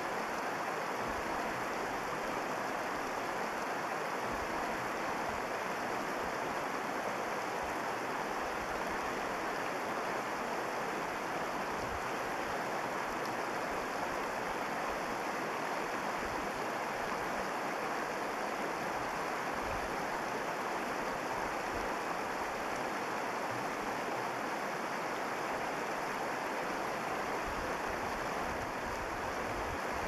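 Shallow, stony river water rushing steadily over rocks.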